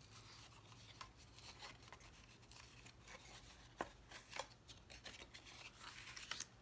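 Cardstock box being folded and creased along its score lines by hand: faint, scattered paper crinkles and soft clicks, with a couple of sharper snaps about four seconds in.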